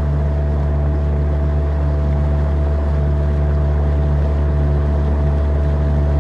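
Small tiller-steered outboard motor running steadily at cruising speed, driving a small open boat along.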